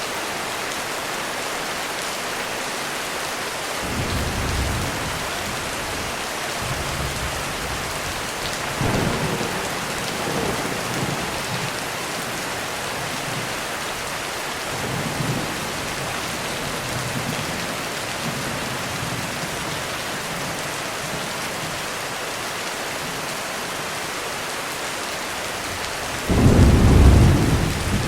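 Heavy rain falling steadily through a thunderstorm, with thunder rumbling low several times. A loud, deep peal of thunder breaks out near the end.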